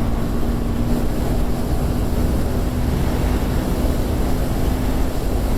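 KTM 390 Duke's single-cylinder engine running at a steady pace through its stock exhaust while riding, almost buried in heavy wind rush on the microphone.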